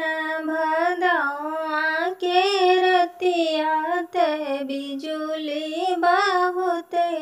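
A woman singing a sohar, a North Indian folk birth-song, solo: long held notes that waver up and down, broken by short breaths.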